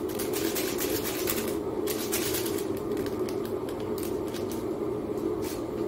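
A small plastic seasoning sachet crinkling and rustling in the hands as it is worked open, in many quick crackles, over a steady low hum.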